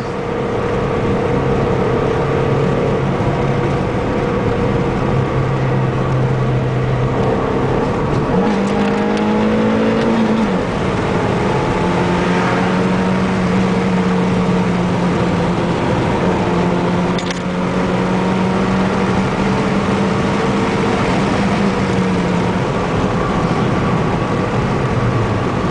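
Car engine and tyre noise heard from inside the cabin while driving fast on a wet road. The engine note holds steady, climbs in pitch about eight seconds in as the car accelerates, holds there, then drops near the end.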